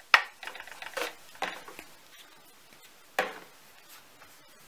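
A spatula scraping under and tucking a soft, sticky bread dough on a floured wooden board, its edge knocking on the board in four sharp taps with quieter scraping and squishing between.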